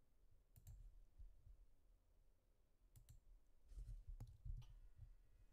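Near-silent room tone with a few faint computer mouse clicks, scattered singly and in a quick pair, and some soft low bumps past the middle.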